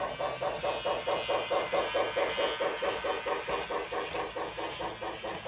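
Battery-powered Lionel Thomas & Friends Ready-to-Play toy locomotive under way, its onboard sound system playing a steady steam chuffing at about five chuffs a second.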